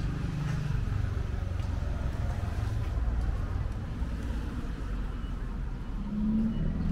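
Street traffic: the low, steady rumble of motor vehicles moving along the road, with a brief steady engine tone rising out of it near the end.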